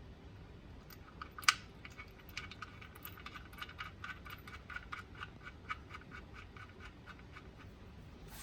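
Ratchet wrench clicking in quick runs of small ticks as the oil drain plug is turned, with one sharper metal click about one and a half seconds in.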